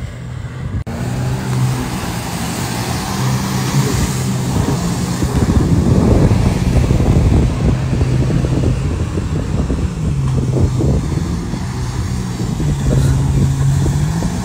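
Motorboat engine running at speed, a steady low hum that dips and rises in pitch a few times, over the rush of wind and water.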